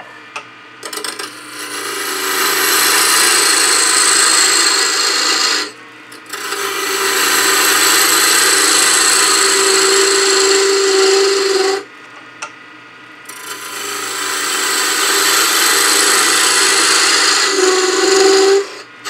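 A parting tool cutting a tenon on a wood blank spinning on a Laguna 1216 midi lathe. There are three long cuts of about five seconds each with short breaks between them, and a steady tone rings under the cutting, strongest in the middle cut.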